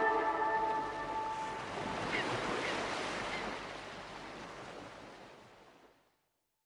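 Sea surf washing, with the last notes of the music ringing out at first; the surf slowly fades away to silence about six seconds in.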